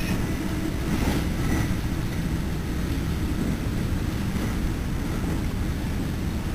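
Steady low rumble of an NJ Transit Multilevel passenger car running at speed, its wheels on the rails, heard from inside the car.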